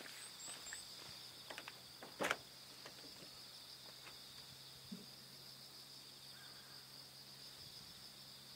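Steady high-pitched chorus of insects trilling, with a few soft clicks early on and one sharper knock about two seconds in.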